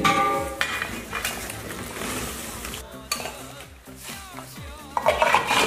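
A large metal wok lid clanks and rings briefly as it is lifted off, then a metal slotted skimmer clinks and scrapes against a bowl as boiled zongzi are scooped out, with a louder clatter about five seconds in. Background music runs underneath.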